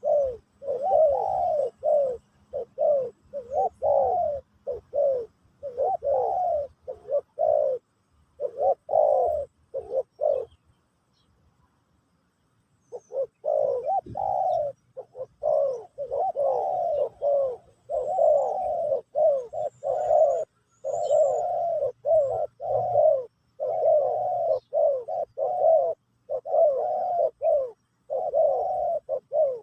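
Spotted doves (terkukur) cooing over and over in quick, back-to-back phrases, breaking off for a couple of seconds about a third of the way through.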